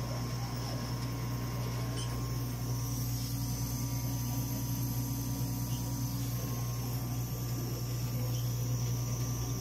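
Dimension RxL clinical chemistry analyzer running: a steady low machine hum with a faint steady high whine above it.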